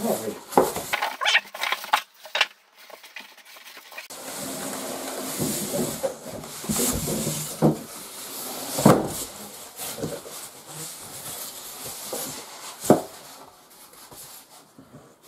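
Polystyrene foam packing pieces being pulled and rubbed against each other and the cardboard box, with plastic wrapping rustling. It opens with a quick run of crinkles and clicks, then settles into rubbing and scraping, with two sharp knocks, about nine and thirteen seconds in.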